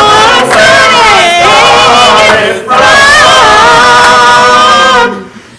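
Gospel choir singing together in harmony, holding long notes, with a short break in the singing near the end.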